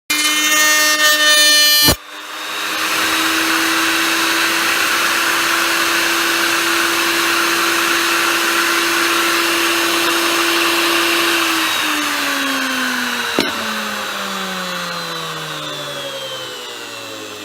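Electric router running at full speed while flush-trimming wood against a template, with a steady high motor whine over cutting noise. Near the end it is switched off and winds down, its pitch falling steadily, with one sharp click along the way. The first two seconds are a louder, harsher stretch that stops abruptly.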